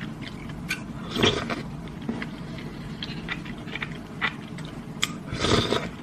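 Eating sounds: a spoon clicking and scraping in a paper cup of soft tofu pudding, with chewing and slurping. Two of these sounds are louder, one about a second in and one near the end.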